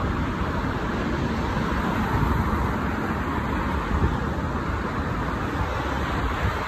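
Steady city traffic noise, a continuous rumble and hiss with no single vehicle standing out.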